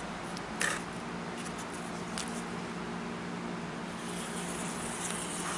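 Steady machine hum of background equipment, like a running fan, with a brief scuff about half a second in.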